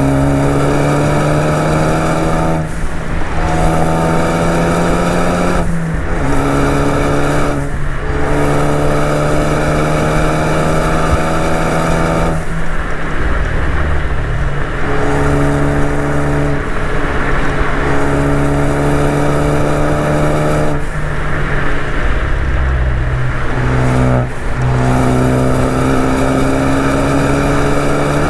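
Ford Focus ST's turbocharged 2.0 L EcoBoost four-cylinder, with a resonator-deleted exhaust, pulling hard: its note climbs steadily in pitch, then breaks off and drops at each shift or lift, about six times. Wind and road noise run steadily underneath.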